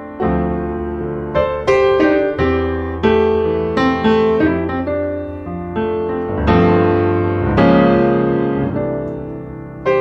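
Background piano music: notes and chords struck one after another, each fading away.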